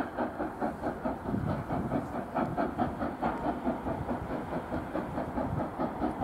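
Steam locomotive working toward the camera, its exhaust beating in a quick, even rhythm of several beats a second.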